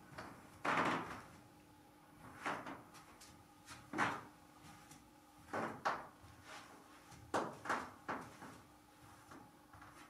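Soft, irregular thuds and scuffs of trainers on a carpeted floor as a person moves and turns, about a dozen in all, over a faint steady hum.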